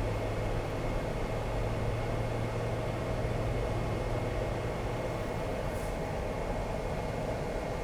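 Steady road and engine noise inside a car's cabin while driving, with a low hum and a faint steady high whine.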